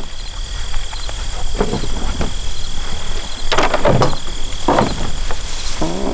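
Insects trilling steadily at a high pitch with small pulsing chirps above it, broken by several louder clatters and rustles of hunting gear being handled, the strongest about halfway through.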